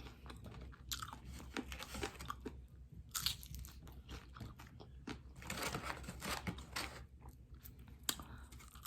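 Close-miked chewing of crispy fried chicken wings: irregular crunches and wet chewing, in a few busier spells.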